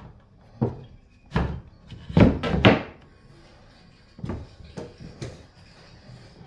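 A series of knocks and thuds, about eight, with the loudest three coming in quick succession a little over two seconds in.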